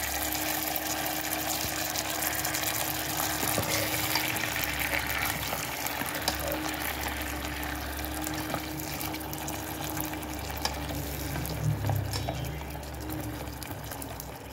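Beef simmering in a pot of sauce, a steady liquid hiss, while a metal ladle scoops out meat and sauce with faint clicks and scrapes.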